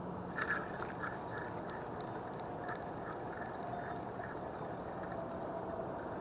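Steady quiet outdoor background hiss by a calm creek, with a few faint clicks about half a second in.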